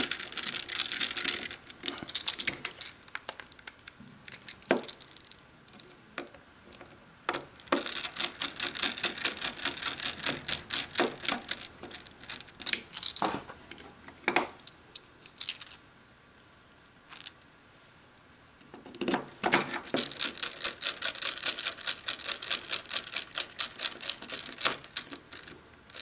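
A small screwdriver turning screws into the plastic battery cover of a wireless hitch camera, giving runs of rapid clicking with a pause near the middle.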